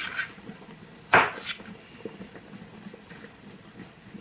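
Kitchen clatter during food prep: a loud sharp knock of an object set down or struck on the counter about a second in, followed by a second, smaller clack, with faint small clicks of utensils around it.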